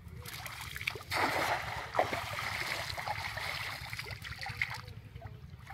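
Cast net thrown into shallow pond water: the weighted net lands with a loud splash about a second in, followed by a few seconds of splashing and trickling that fades out near the end.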